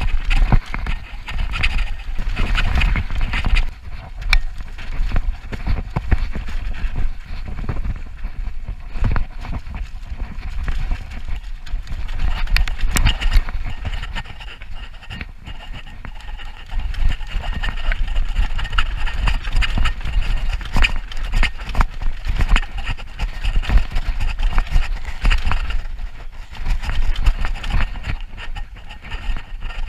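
Downhill mountain bike riding fast over a dirt trail, heard from an on-board camera: wind buffeting the microphone, tyres rumbling on dirt, and the bike's chain and frame rattling with sharp knocks over bumps and roots.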